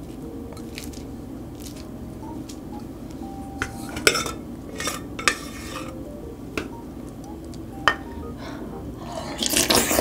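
A plastic rice paddle knocks and scrapes against a rice-cooker pot and a ceramic bowl as rice is scooped out, in a series of sharp, separate clicks and knocks. Near the end comes a louder run of spoon scraping and stirring as the rice is mixed into the soup.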